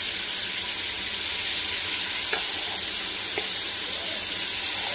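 Marinated chicken tikka pieces sizzling in hot vegetable oil on a flat tawa, a steady hiss, with two faint clicks in the middle.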